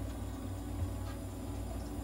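Steady low mechanical hum of a veterinary nebulizer and oxygen-therapy unit running, feeding mist into a cat's cage.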